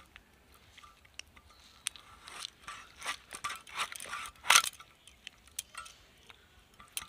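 Aar catfish's head being cut on a bonti blade: hard bone crunching and cracking against the blade. A few sharp clicks at first, then a run of crunches from about two seconds in, loudest a little past the middle; the head is very hard to cut.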